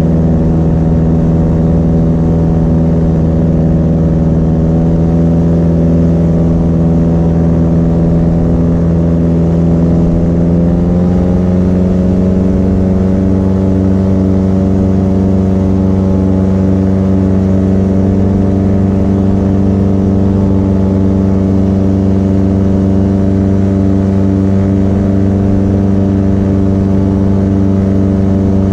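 Paramotor engine and propeller running steadily in flight, its pitch stepping up slightly about ten seconds in as the engine speeds up, then holding.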